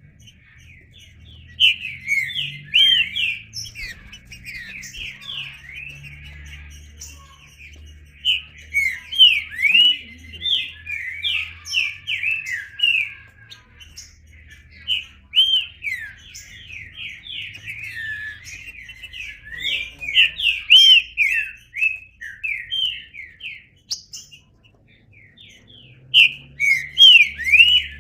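Green-winged saltator (trinca-ferro) singing: bursts of rapid, loud whistled notes sweeping up and down, with short pauses between bouts.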